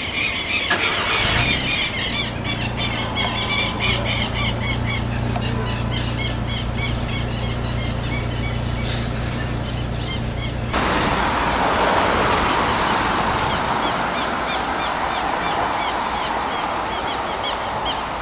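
A flock of birds chirping and squealing in a dense, continuous chorus. Under it, a steady low hum runs for the first ten seconds or so and stops abruptly about eleven seconds in, where the background turns to a broader hiss.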